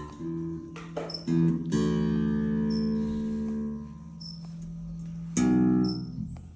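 Electric bass played through an amp: a few slow, separate plucked single notes, one left ringing for about two seconds before it fades, and another struck near the end. A beginner working haltingly through an E minor scale.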